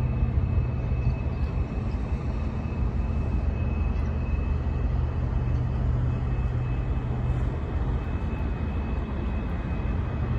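Steady low diesel engine drone from a container ship and the tug working alongside it, with a faint, steady high whine above it.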